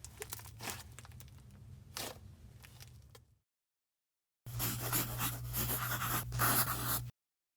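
Slime being handled and squished, giving faint scattered sticky clicks at first, then, after a gap, a denser run of crackly clicks and squelches that cuts off suddenly.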